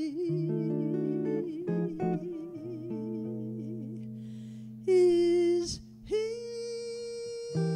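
Live jazz ballad: a female voice sings with a wide vibrato over sustained archtop guitar chords. About five seconds in comes a loud held note, then another long steady note as the guitar chords go on.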